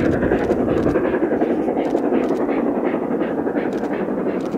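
Steam-hauled train running: a steady, loud rush of noise with short sharp beats a few times a second.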